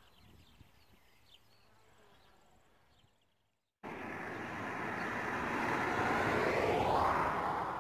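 A few seconds of quiet outdoor air with faint high chirps, then a vehicle passing on the road: its noise starts abruptly, swells over about three seconds, peaks with a falling pitch sweep near the end and begins to fade.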